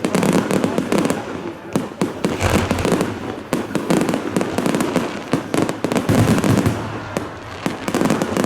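Fireworks going off: rapid crackling and popping with deeper booms about two and a half seconds in and again about six seconds in.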